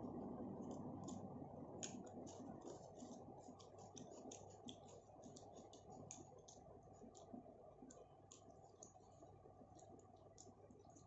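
Faint eating sounds: small irregular mouth clicks and smacks of chewing, several a second, thinning out in the second half, over a steady low rumble of background noise.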